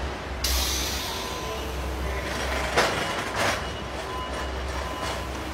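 Car assembly-line machinery noise: a steady low hum, with a sudden hiss about half a second in and a few short knocks near the middle.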